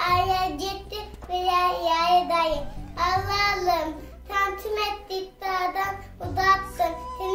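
A young boy singing in a child's voice, phrases with held notes broken by short pauses.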